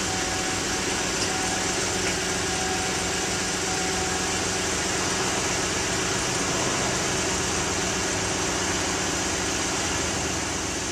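GMC Yukon's 5.3-litre V8 idling steadily, running on its remote start.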